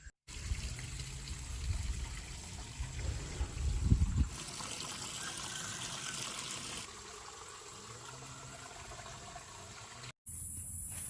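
Water trickling and splashing, a steady noisy wash, with wind rumbling on the microphone for the first four seconds or so. About ten seconds in it cuts abruptly to a different sound with a steady high hiss.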